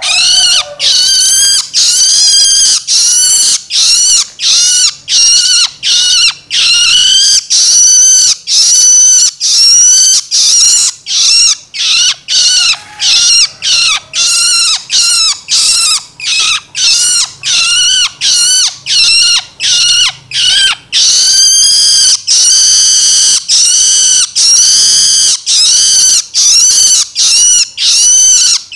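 Young long-tailed shrike (cendet) chick giving its begging call: a loud call repeated about twice a second, each call rising and then falling in pitch.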